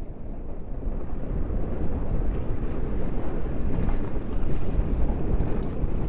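Chevrolet Silverado pickup carrying a slide-in camper, driving over a snowy, rutted gravel trail: a steady low rumble of tyres and engine with wind noise on the microphone, fading in over the first second or two.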